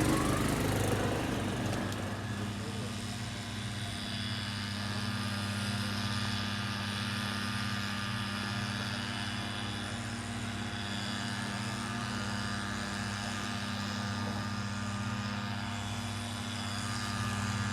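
A steady motor hum running evenly, with a low drone and a fainter whine above it.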